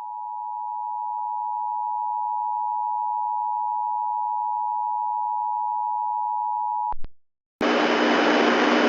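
Emergency Alert System attention signal: a steady two-tone beep of 853 and 960 Hz sounded together, which cuts off with a click about seven seconds in. After a brief silence a loud, steady hiss of static starts.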